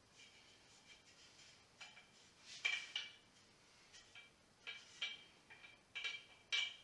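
Metal parts of an old Shmel primus stove clinking and knocking as they are handled: a string of short, ringing metallic clinks, the loudest about two and a half seconds in and just before the end.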